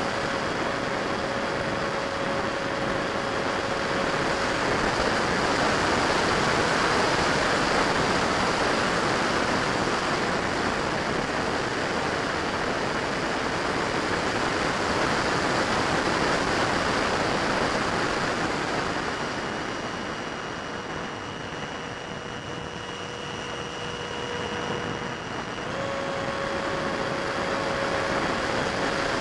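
Onboard sound of a Freewing 70mm electric-ducted-fan F-35 RC jet in flight: a steady rush of air over the airframe with a thin fan whine on top. About two-thirds through it quietens and the whine drops slightly in pitch for several seconds, then picks back up near the end.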